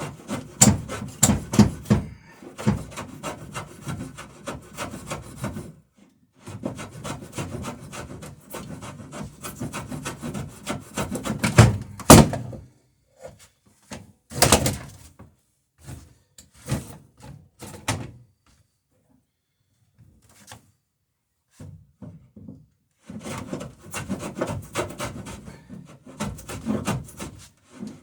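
Rabbet plane shaving the bevel along the edge of a wooden boat plank, in runs of quick short strokes with pauses between. A couple of single strokes stand out louder about twelve and fourteen seconds in.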